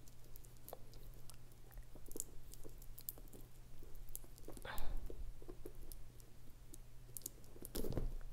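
Small scattered clicks and crackles as fingernails pick at and peel protective plastic tape from a leather bag's metal hardware, with a louder rustle about five seconds in and again near the end.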